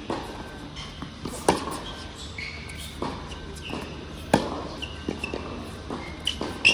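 Tennis ball struck back and forth by rackets in a rally, a sharp hit every second and a half or so, the loudest about four seconds in, with short high squeaks of shoes on the court between the hits.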